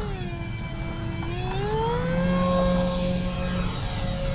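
Twin brushless outrunner motors (AeroStar 3536 850KV) spinning three-blade propellers on an Avios Albatross HU-16 V2 RC flying boat, a layered electric whine during its belly takeoff. About a second and a half in, the pitch rises as the throttle goes up to full power, then holds steady.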